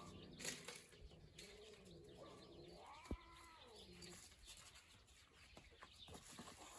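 Faint animal cries: a few drawn-out calls, one rising and then falling in pitch about three seconds in, with a single sharp click just after it.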